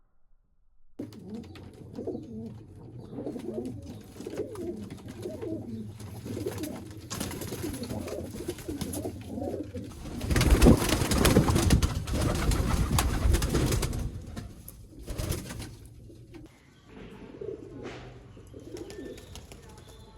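Domestic pigeons cooing repeatedly in a small room. A loud noisy stretch of about four seconds comes near the middle.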